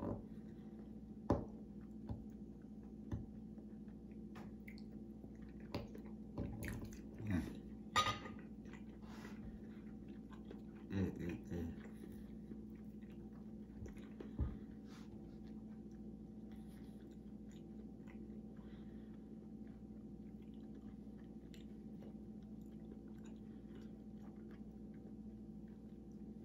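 A person eating close to the microphone: chewing, with scattered mouth clicks and smacks through the first half, then only a steady low background hum.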